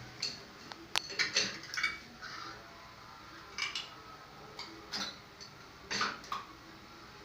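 A washing-machine tap being screwed into its threaded wall fitting: scattered metallic clinks and scrapes as it is turned.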